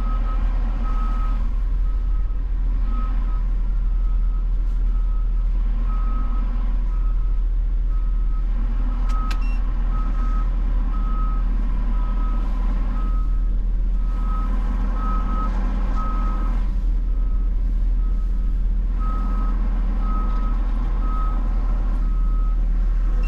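Truck's reversing alarm beeping steadily, about one and a half beeps a second, over the low drone of a running engine.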